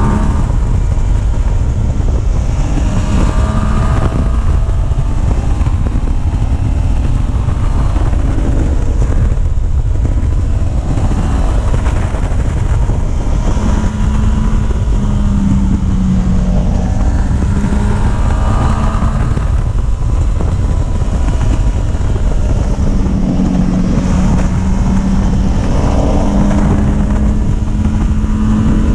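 A vehicle engine running on the move, its pitch rising and falling, under a heavy, steady rumble of wind on the microphone.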